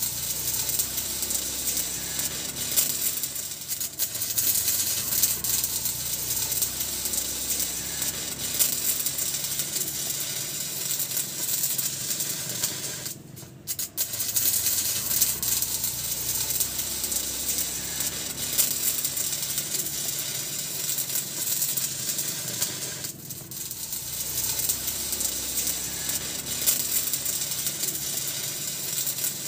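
Electric stick-welding arc crackling as the electrode is run on a steel frame. The crackle drops out briefly about 13 seconds in and dips again near 23 seconds.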